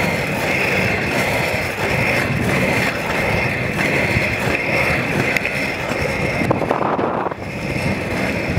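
Inline skate wheels rolling steadily over rough asphalt, a continuous gritty rumble with wind buffeting the microphone; the sound turns duller for a moment about seven seconds in.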